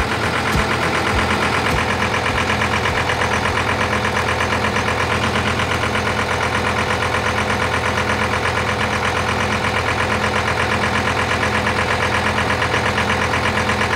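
John Deere compact tractor's engine idling steadily, with an even pulsing beat.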